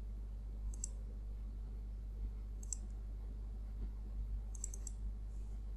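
Computer mouse button clicks, single clicks a couple of seconds apart and then a quick double click, made while selecting curves in the CAD program, over a steady low hum.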